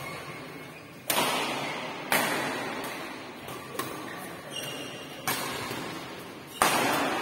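Badminton rackets striking the shuttlecock in a doubles rally: four sharp cracks, about a second in, around two seconds, past five seconds and near the end, with lighter hits between. Each crack rings on in the echo of a large hall.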